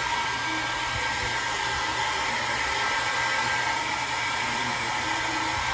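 Hair dryer blowing steadily, a constant airy hiss with a faint whine, drying a freshly bathed dog's wet coat.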